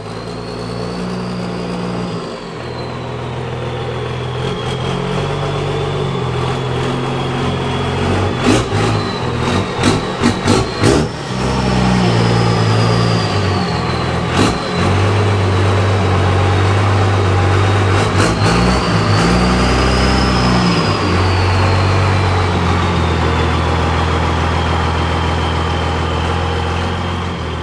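Jeep Wrangler YJ's engine running steadily, with a burst of short, sharp bangs about a third of the way through.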